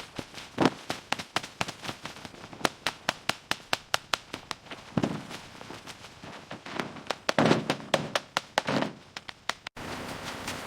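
A rapid, irregular run of sharp cracks and knocks, several a second, with a few heavier thumps among them. Near the end it cuts off abruptly to a steady hiss.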